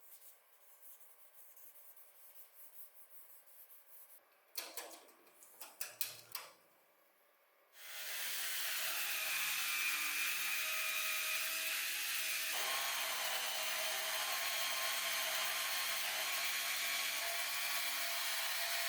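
A few light knocks and rubs from handling parts, then about eight seconds in a small electric power tool starts and runs steadily, its motor whining at a fixed pitch over a loud grinding, abrasive rub against the diecast model's metal.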